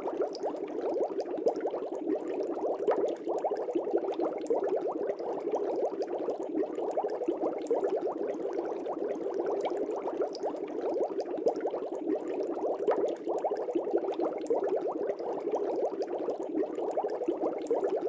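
Aquarium air bubbles bubbling in the water, a dense, steady stream of small bubbling sounds.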